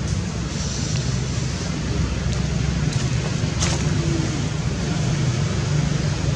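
Steady low rumble and hiss of outdoor background noise, with a few faint clicks between about two and four seconds in.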